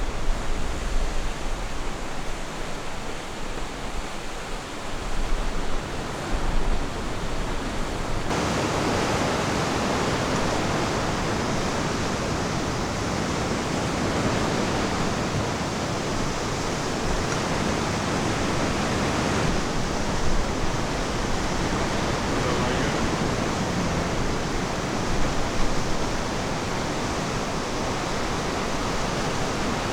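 Ocean surf washing onto a beach as a steady, even rush of water. About eight seconds in the sound changes abruptly and becomes fuller.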